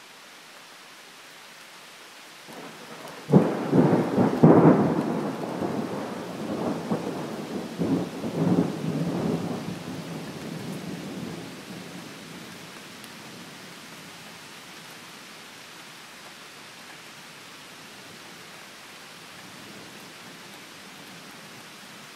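A thunderclap breaks about three seconds in and rolls on in several rumbling peaks before dying away by around twelve seconds. Steady rain hisses underneath.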